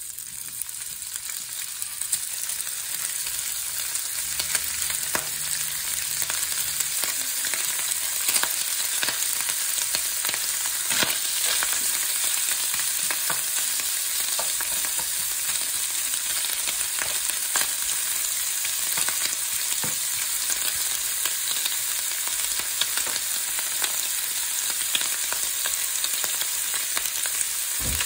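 Sliced ham sizzling in hot oil in a frying pan: the hiss builds over the first couple of seconds as the pieces go in, then holds steady with scattered pops and crackles. A spatula stirs the ham now and then.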